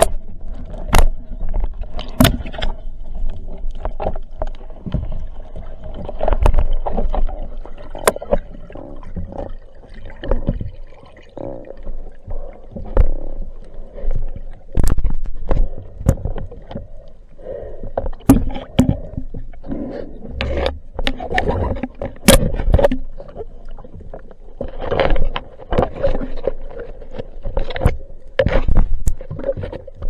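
Underwater sound from a diver's action camera: muffled knocks and clicks of gear and water moving against the camera housing, irregular throughout, over a faint steady hum.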